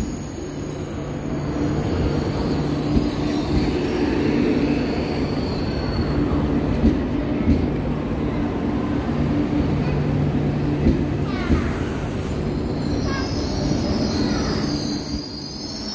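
KTX high-speed train rolling slowly into a station platform under braking, with a steady low hum from its drive. Thin high wheel squeal comes in the first few seconds and again near the end, with a few sharp clicks in between.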